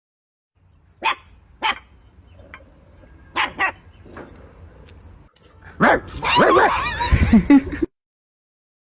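A dog barking: two short, sharp barks, then another quick pair, then near the end a longer, louder run of barking whose pitch slides up and down before it cuts off abruptly.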